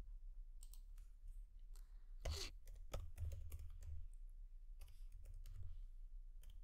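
Computer keyboard typing: a run of faint, irregular key clicks over a steady low hum, with one louder short noise a little over two seconds in.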